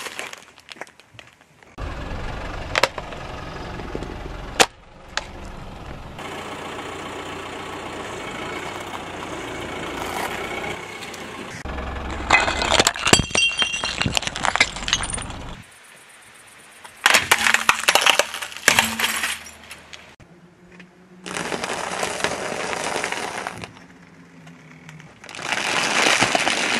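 A car tyre slowly rolling over and crushing one object after another. There are sharp cracks, breaking with glassy clinks about halfway through, and crunching stretches. Near the end a bag of foil-wrapped chocolate eggs crackles and crunches under the tyre.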